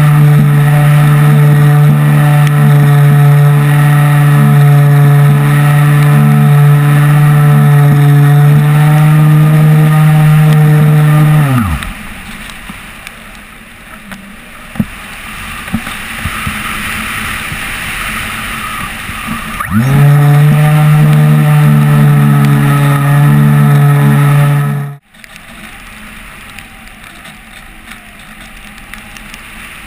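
An RC glider's motor and propeller running at a steady pitch, heard from a camera mounted on the plane. About 12 seconds in the motor winds down, leaving only air rushing past while it glides. It starts again about 20 seconds in and cuts off suddenly about 25 seconds in, leaving the rush of air.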